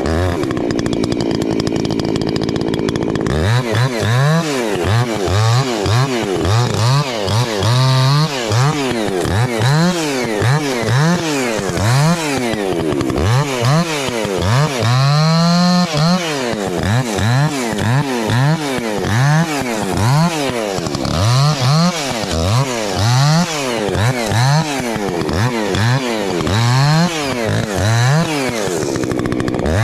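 Two-stroke Husqvarna chainsaw limbing a fallen tree. It holds one steady pitch for the first three seconds, then is revved up and let back down about once a second as branch after branch is cut, with one longer held cut about halfway through.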